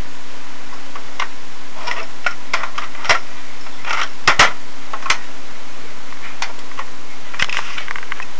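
Irregular light clicks and taps, the loudest a quick pair about halfway through, over a steady hiss with a faint low hum.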